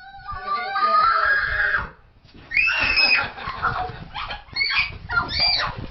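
A dog screaming: a long, high-pitched wailing cry lasting about two seconds, a louder cry that bends up and down, then several short cries near the end.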